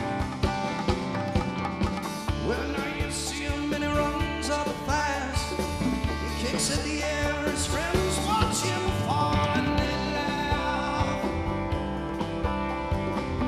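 Live rock band playing an instrumental passage: electric guitars over a drum kit, with a lead guitar line bending up and down in pitch.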